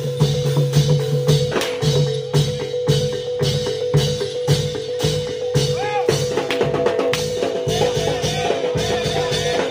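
Live Reog gamelan accompaniment: quick, even drum and percussion strokes with metal gong-chime notes over a steady held high tone.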